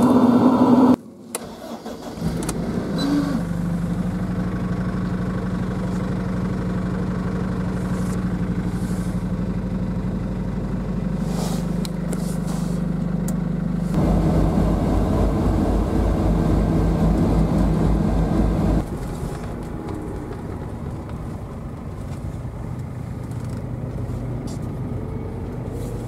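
A van engine runs steadily, heard across several spliced shots. A louder sound cuts off about a second in, and the engine sound changes character abruptly around halfway through and again a few seconds later.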